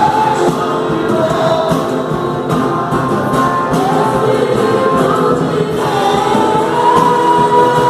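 Choir singing gospel music, with long held notes.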